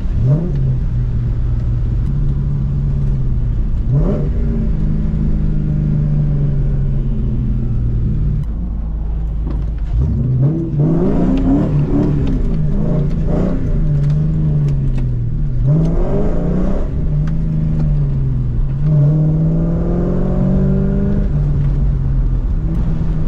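A 2004 Ford Mustang GT's 4.6-litre V8, breathing through an off-road X-pipe and Borla S-Type exhaust, is accelerating through the gears. The engine note climbs, drops at each gear change and climbs again, several times over.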